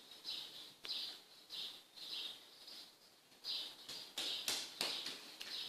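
A bird chirping repeatedly, a short high chirp about every half second with a pause midway. A few sharp clicks come near the end.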